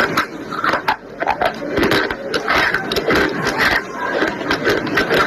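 A person biting and chewing brittle pieces of slate, a quick irregular run of sharp crunches and crackles.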